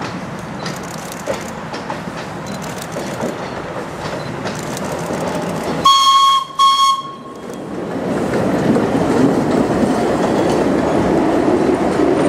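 1891 Sydney steam tram engine running past with its trailer car, giving two short toots on its whistle about six seconds in. After the toots a louder, steady rushing running noise follows as it goes by.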